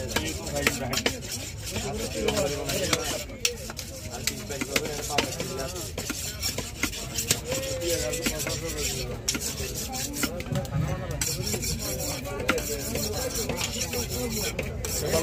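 Knife scraping and cutting through a large pangas catfish, irregular rasping strokes mixed with frequent sharp knocks of the blade.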